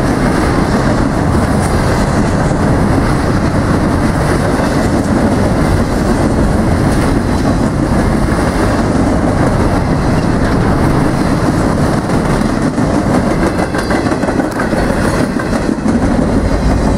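Empty double-stack container well cars of a freight train rolling past close by: the steady, loud noise of steel wheels running on the rails.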